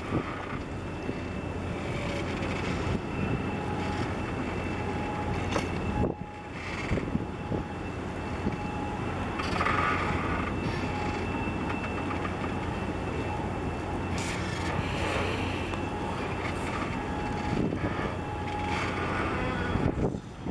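Low, steady engine drone of a large container ship passing close, with a rough rushing noise over it.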